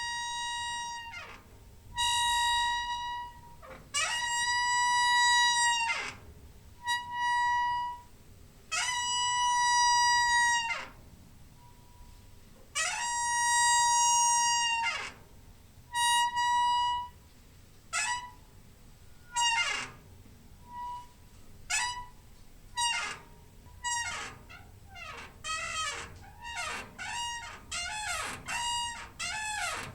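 Door hinge squeaking, a run of high-pitched squeals at one steady pitch, each sliding up or down as it starts and stops. Long drawn-out squeaks at first, then shorter, quicker ones close together in the last third.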